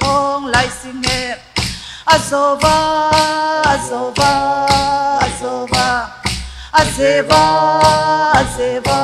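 A voice singing a Chin folk song through a microphone, in held notes with a slight wobble, over sharp, regular knocks of dance poles being clapped together for a pole dance.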